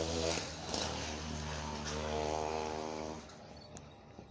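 Propeller aircraft engine droning at a steady pitch, fading out about three seconds in; a couple of faint clicks follow.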